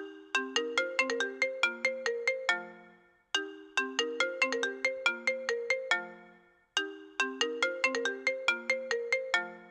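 iPhone ringtone playing a short melody of quick, chiming notes that ends on a lower note. The phrase repeats three times, about every three and a half seconds.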